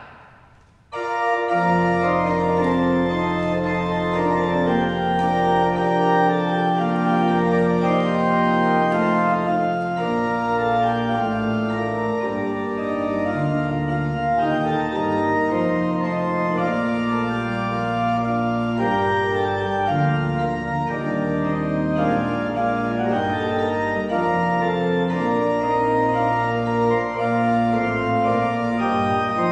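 Organ playing slow, sustained chords, starting abruptly about a second in.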